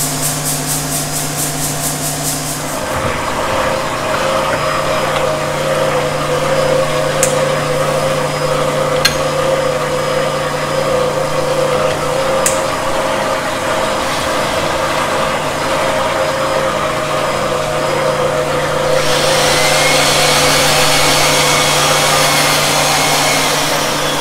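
Align hone running, its motor-driven mandrel honing the main bearing bores of an LS V8 engine block. A steady machine tone starts about three seconds in over a constant hum, and a louder hiss joins for the last few seconds.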